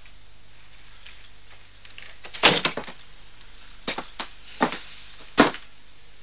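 A door being handled: a sharp clack about two and a half seconds in, then several lighter knocks and clicks, over a low steady room hum.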